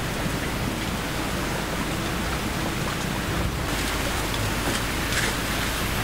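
Steady hiss of light rain. About three and a half seconds in it changes to a brighter hiss with a few scattered dripping ticks.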